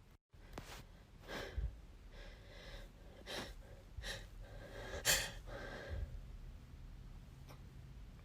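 A person breathing quietly, with a series of short, sharp intakes of breath, about one a second, the loudest about five seconds in.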